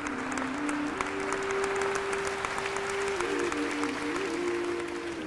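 Audience applauding over background music of long held notes that shift in pitch a few times.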